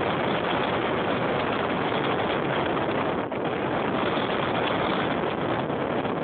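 Car driving along a sand beach: steady engine and tyre noise, with wind rushing over the microphone held outside the window.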